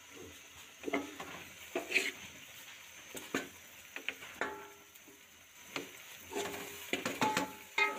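A spoon stirring vegetable pulao rice in a nonstick wok, with irregular scrapes and clinks against the pan over a faint sizzle as the last of the cooking water boils off.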